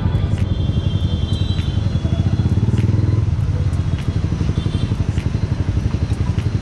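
Yamaha R15S's single-cylinder engine idling through a loud aftermarket exhaust: a fast, even low putter, briefly a little louder about two to three seconds in.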